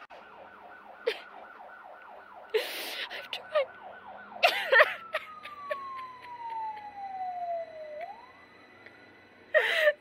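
An emergency-vehicle siren in rapid yelp mode, sweeping up and down about four times a second, with short gasping breaths. About halfway through the yelp stops, and the siren tone slides slowly down in pitch, then swings back up.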